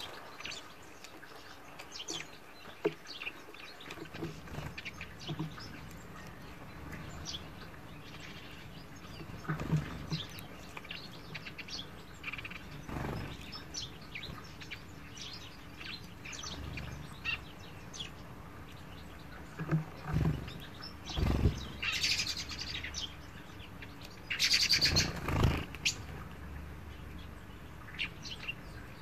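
Finches chirping in short, scattered high calls around a seed feeder, with a few louder short noises in between, the loudest about four seconds from the end.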